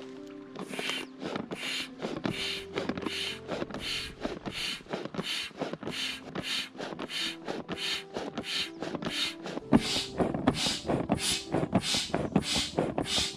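Foot bellows pump inflating an inflatable boat, each step pushing a puff of air through the hose: an even, rhythmic whoosh about two and a half times a second, growing louder about ten seconds in.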